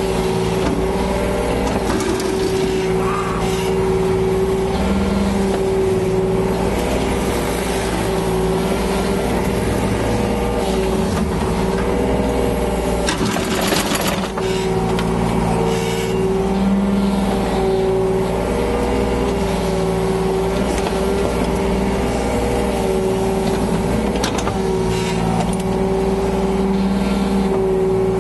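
Yanmar BV25 mini excavator's diesel engine running steadily under hydraulic load, its pitch dipping and rising as the machine works, with a brief rushing noise about halfway through.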